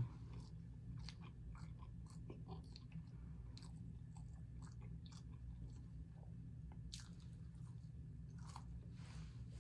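A person chewing a soft sandwich, a McDonald's Filet-O-Fish, close to the microphone, with scattered small wet mouth clicks over a steady low hum.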